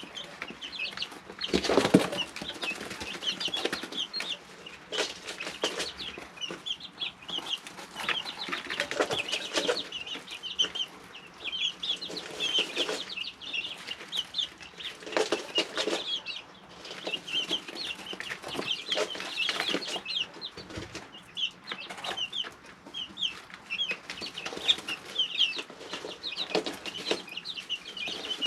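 A brood of 3-week-old chicks peeping continuously, many short high chirps overlapping, with repeated brief rustling scuffles as they move about the brooder.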